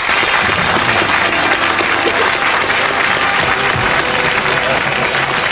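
Television studio audience applauding steadily to welcome a guest on stage.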